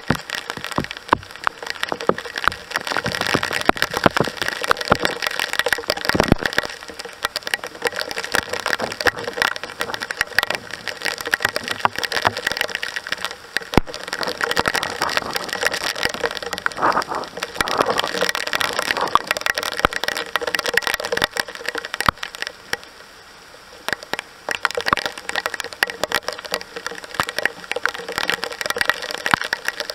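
Heavy downpour: a dense crackling patter of rain striking a nearby surface, easing briefly a little after twenty seconds in.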